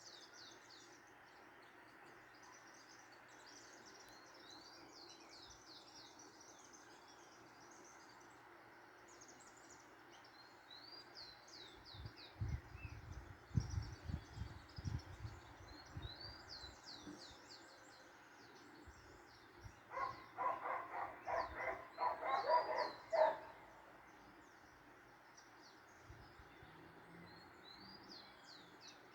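Small birds chirping over and over in quick high notes. A few low thumps come about halfway through, and a louder burst of rapid pulsed calls follows a few seconds later.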